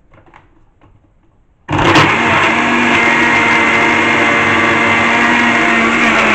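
Countertop blender: a few faint clicks as the lid is handled, then the motor starts suddenly about two seconds in and runs loud and steady with a constant hum, blending carrot, apple, citrus and strawberries with water into a smoothie.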